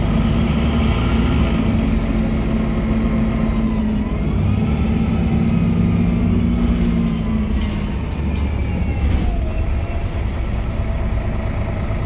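Interior sound of a MAN NG313 articulated bus under way: its MAN D2866 diesel and Voith D864.3E automatic gearbox running, heard inside the cabin. A drivetrain whine dips in pitch about four seconds in, rises again, then falls near nine seconds, and the low engine drone eases off about eight seconds in.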